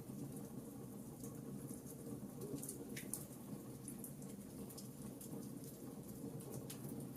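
Fireplace crackling: scattered small snaps and pops, one sharper pop about three seconds in, over a steady low rumble of the flames.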